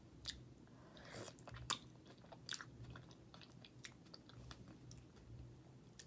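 Faint wet mouth sounds of a person eating a small buttered boiled potato: soft chewing and lip smacks, with a few short clicks spread through.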